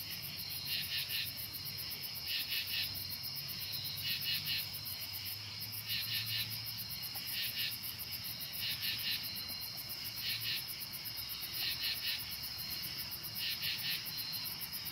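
Night-time chorus of crickets and other insects: short rasping calls repeat about every second and a half over a steady, rapid high-pitched trill.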